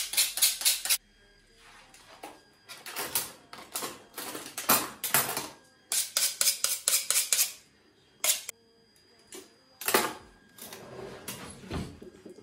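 Metal cutlery clinking and clattering in a plastic drawer tray as spoons and a knife are sorted through, in several bursts of quick clinks with short pauses between them.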